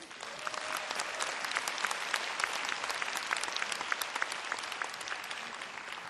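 Audience applauding in a large auditorium: many hands clapping at once. It starts suddenly and thins out near the end.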